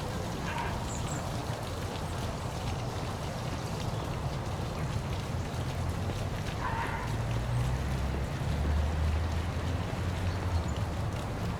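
Park waterfall: a steady rush and splash of falling water over a low rumble. A couple of brief, faint higher calls come about half a second and seven seconds in.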